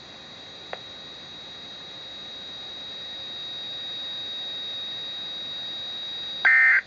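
NOAA Weather Radio receiver hissing on dead air, with a faint steady high whine and a single click about a second in. Near the end a loud, short burst of EAS digital data tones (SAME code) cuts in, the first of the end-of-message bursts that close the test.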